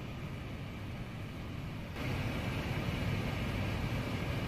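Steady background noise in an airliner cockpit on the ground: a low hum with an even hiss of air and equipment. About two seconds in it steps up and becomes louder and brighter.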